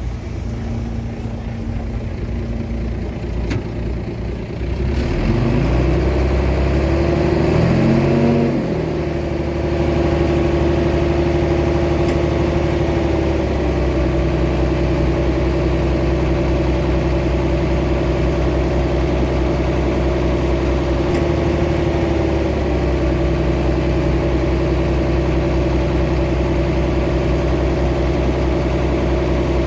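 Diesel engine of a Komatsu D21A small bulldozer, running at low revs at first, then revving up about five seconds in, its pitch climbing and wavering, before it settles into a steady, loud working note.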